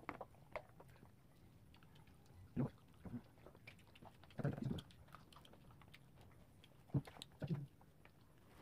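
People eating fried food with their hands: chewing and small clicks of handling, with a few louder short knocks spread through.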